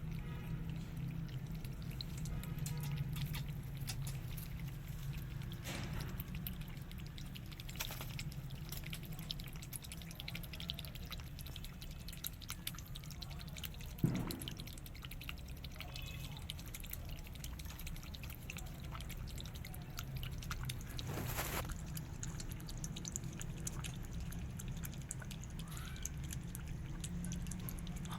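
Cat lapping chicken soup from a dish: a long quick run of small wet laps, with a few louder clicks here and there.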